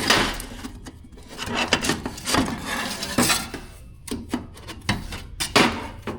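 Stainless steel exhaust tubes being handled and fitted together, with irregular metal scraping and sliding, and several sharp clinks and knocks.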